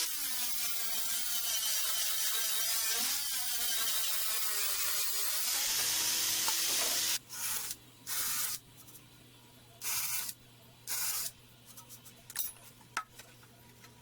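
Hissing spray: a long continuous spray with a wavering tone, then four short bursts about a second apart, with a low steady hum underneath.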